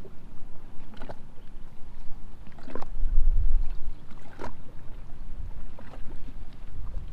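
Small waves lapping against the hull of a drifting Sea-Doo personal watercraft, a short slap every second or two, over a low rumble of wind on the microphone.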